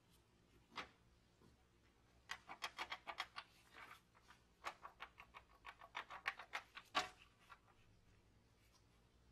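Handling noise of a rusty antique hand saw in gloved hands: quick, light clicks and scratches of the steel blade and wooden handle being turned and gripped, in two spells with a louder click near the end.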